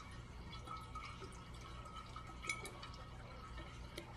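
A marker swished around in water inside a glass jar: faint sloshing of the water, with a few light clicks of the marker against the glass.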